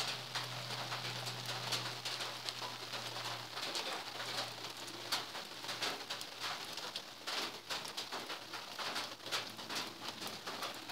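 Birds calling over an outdoor hiss after rain, with scattered sharp drips. A faint low hum fades out about four seconds in.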